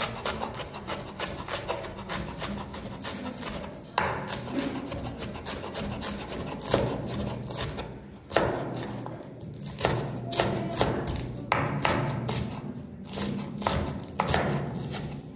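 Chef's knife shredding cabbage on a wooden cutting board: a quick, steady run of knife strokes knocking through the leaves onto the board, several a second, with brief pauses between runs.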